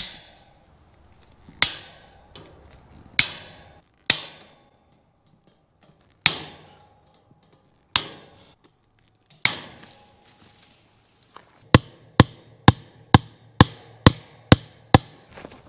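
Fence staples being worked out of a wooden fence post with fencing pliers: single sharp metallic clicks with a brief ring, every second or two. Near the end a hammer strikes eight quick blows at the foot of the post.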